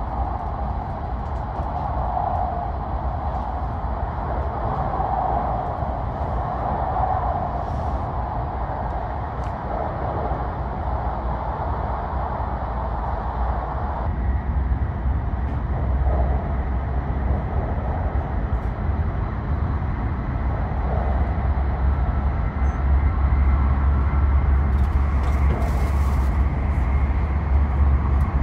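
Hayabusa shinkansen running through a tunnel, heard inside the passenger cabin: a steady rumble with a hiss above it. The low rumble grows louder about two-thirds of the way in.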